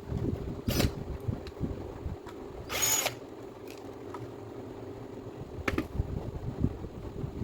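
Makita BO4901 finishing sander running with a steady hum, with scattered knocks and a short loud hiss about three seconds in.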